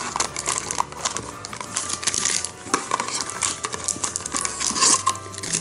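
Foil Pokémon TCG booster packs crinkling and rustling as they are pulled out of the display box and gathered into a stack in the hand, with irregular small crackles throughout.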